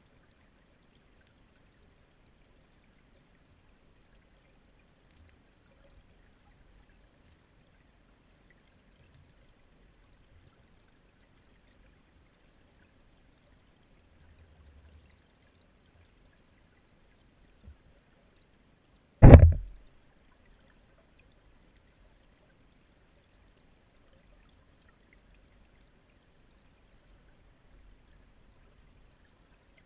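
One sharp, loud knock about two-thirds of the way through, dying away in under a second, against near silence with a faint low rumble.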